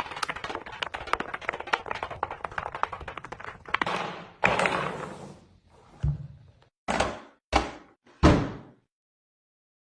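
A rapid clatter of small hard taps, then a short scraping slide, then four separate knocks about a second apart, the last the loudest.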